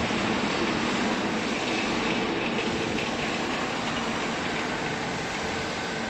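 Steady mechanical running noise from factory machinery, easing slightly near the end.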